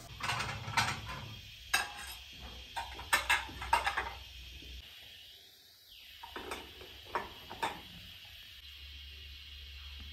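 Clatter of cookware and dishes: a frying pan knocking against a gas-stove grate, then ceramic plates clinking as they are stacked, a handful of sharp knocks and clinks in all.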